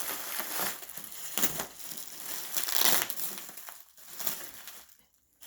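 Plastic bubble wrap crinkling and crackling as it is pulled open and unwrapped, with brief pauses around four seconds in and near the end.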